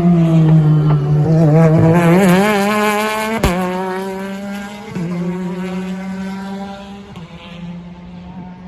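Race car engine on the circuit, its pitch dipping and then climbing unevenly as the car accelerates, with a sharp pop about three and a half seconds in. After that a steadier engine note fades as the car pulls away.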